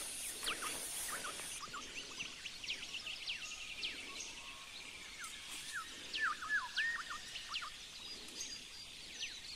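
Wild birds calling in forest: scattered short, sharp down-slurred chirps and a quick trill of repeated notes, over a high steady hiss that cuts off about a second and a half in.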